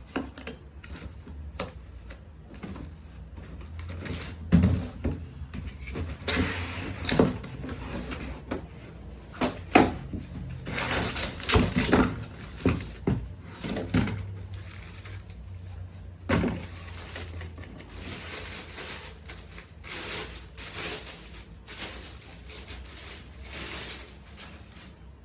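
Unboxing handling noises: irregular knocks and thumps as parts and packaging are moved, with stretches of packaging rustling.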